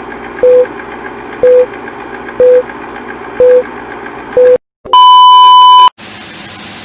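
Film countdown leader sound effect: five short beeps, one each second, over a steady projector-like noise, then a longer, higher beep at the end of the count. A cut about six seconds in leaves a steady hiss of workshop room tone.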